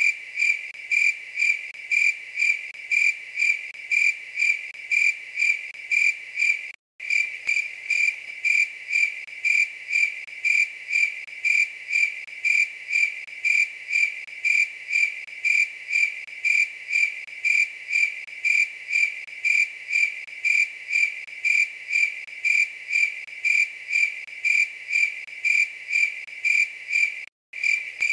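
A night-singing insect chirping steadily, a high-pitched chirp repeated about two times a second. The sound cuts out completely for a moment twice.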